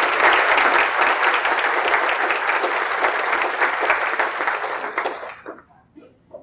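Audience applauding, a dense patter of clapping that fades out about five seconds in, followed by a couple of faint knocks near the end.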